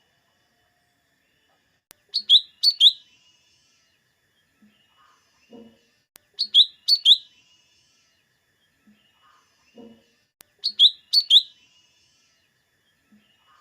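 Cucak ijo mini (lesser green leafbird) calling: a phrase of three or four sharp, high, falling notes, repeated three times about every four seconds, with faint softer notes in between.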